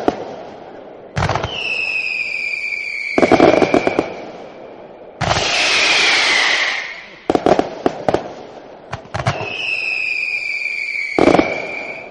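Fireworks going off: sharp bangs and clusters of crackling pops, with whistling rockets whose whistle falls slightly in pitch, and a long hiss around the middle.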